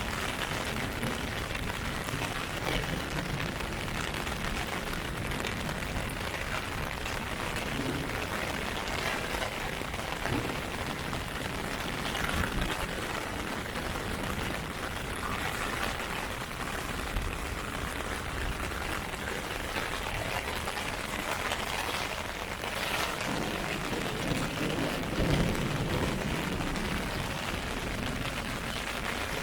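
Heavy rain falling steadily on an umbrella held overhead, an even hiss with a few slightly louder moments.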